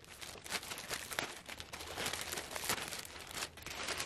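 Clear plastic poly bag crinkling and rustling in the hands, in many irregular short crackles, as a tote bag is worked out of its packaging.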